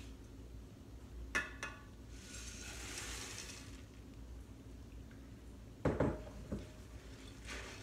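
Kix cereal poured from a glass bowl into a saucepan: a couple of clinks, then a light, high rattling rush of the dry puffed corn balls lasting about a second and a half. A couple of knocks of dishes and utensils follow near the end.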